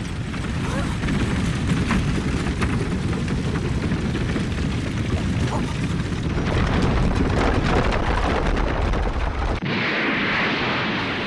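Sound effect of a deep, continuous rumble, like a blast or the ground shaking. About nine and a half seconds in it cuts off sharply and gives way to a loud hissing rush as a burst flares up.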